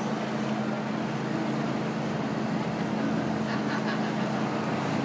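Steady engine hum with street traffic noise.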